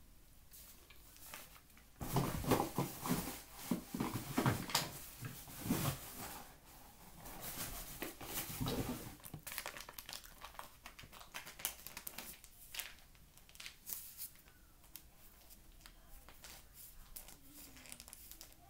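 A bag of cornstarch crinkling and rustling as it is handled, busiest and loudest from about two seconds in until about nine seconds, then lighter, scattered crinkles.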